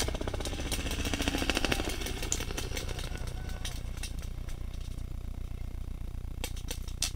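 Paintball markers firing: a rapid, machine-gun-like stream of shots for about the first two seconds, then a few single pops near the end.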